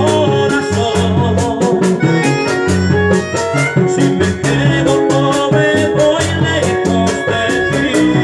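Vallenato music: a button accordion plays a busy melody over bass notes and a steady, rapid percussion beat.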